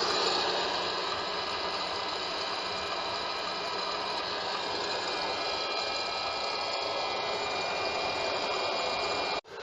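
Hot-air popcorn popper running, its fan blowing a steady rush of hot air through the chamber while the kernels spin and heat before popping. The sound cuts out for a moment near the end.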